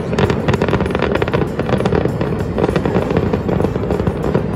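Loud jet roar of a formation of Northrop F-5 fighters, a twin-turbojet type, passing over, with a dense, steady crackle all through.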